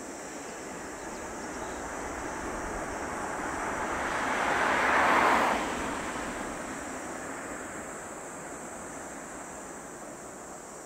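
Distant jet roar of a Boeing 737-800's CFM56 engines on the landing roll, swelling to a peak about five seconds in, then falling away sharply and fading. A faint steady high buzz of insects runs underneath.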